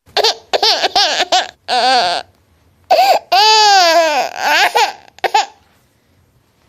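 Baby crying: a run of short high-pitched cries, then a long wail about three seconds in that falls in pitch, stopping after about five and a half seconds.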